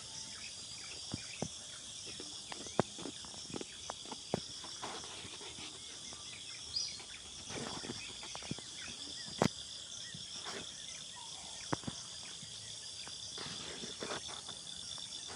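Steady high-pitched chorus of crickets or other insects, with a few scattered sharp clicks and knocks, the loudest about three and nine seconds in.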